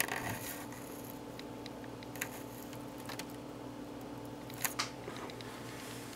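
Handling noise of a Canon Vixia HF M41 camcorder on its own microphone: a few soft clicks and taps, a cluster at the start, one about two seconds in and a quick pair near the end, over a steady low hum.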